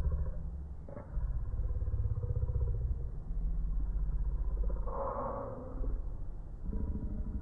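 Steady low rumble, like a motor vehicle running, with a short rise of rougher mid-range noise about five seconds in.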